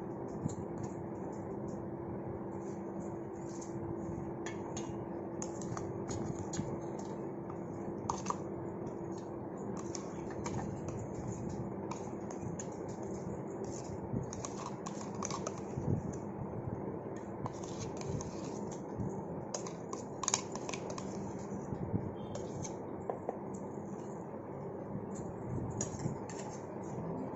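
Metal spoon scraping ground dal paste out of a stainless steel grinder jar and into a steel bowl, with repeated scrapes and clinks of steel on steel throughout, over a steady low hum.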